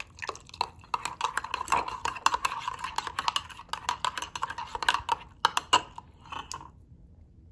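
Metal spoon stirring hot chocolate in a ceramic mug, clinking quickly and repeatedly against the sides of the mug. The clinking stops near the end.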